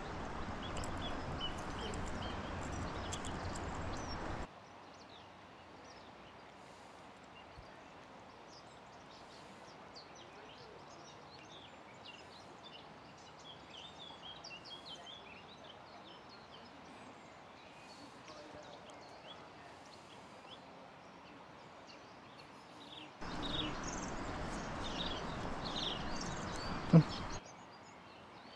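River water rushing with small birds chirping over it. The rush drops away sharply about four seconds in and comes back near the end, with one sharp knock shortly before the end.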